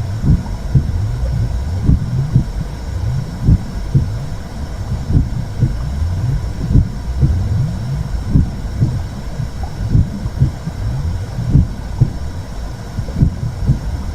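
Womb sound for soothing a baby: a low, muffled whooshing rumble with a regular heartbeat-like thump about every second or so.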